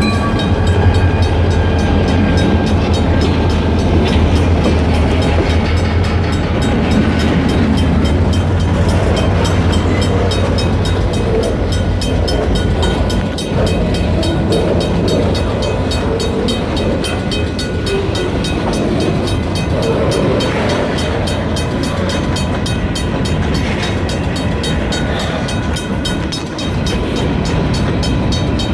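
EMD SD40 diesel locomotives running, a strong low engine drone for about the first ten seconds, then the steady rolling noise of the train's wheels on the rails. The locomotives are 16-cylinder two-stroke EMD 645 diesels.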